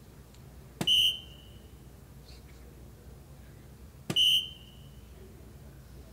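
Two soft-tip darts hitting a DARTSLIVE electronic dartboard about three seconds apart. Each hit is a sharp knock followed at once by the machine's short, high electronic beep, which registers a single 19.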